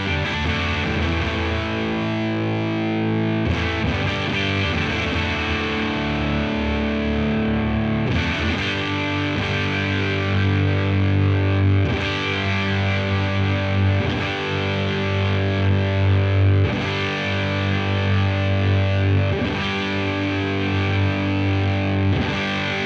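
Fender Stratocaster played through a Devi Ever Big Distortion Sound Machine fuzz pedal into a Laney VC30 valve combo: heavily fuzzed electric guitar chords, each left to ring for about four seconds before the next is struck.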